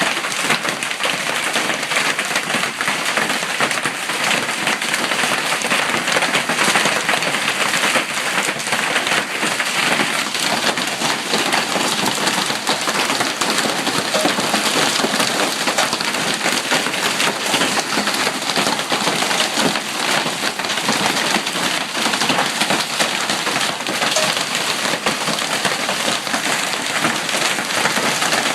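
Hail falling steadily in a storm: a dense, unbroken patter of hailstones striking the ground and surfaces, with no letup.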